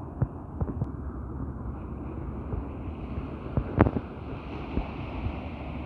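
Wind buffeting the microphone over the steady rush of sea surf, with repeated low thumps from gusts; the sharpest thump comes a little under four seconds in.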